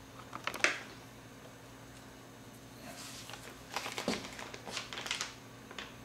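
Large sheets of painted paper rustling and crinkling as they are handled and swapped. There is a short burst about half a second in and a longer run of crackles from about three to five seconds in, over a faint steady hum.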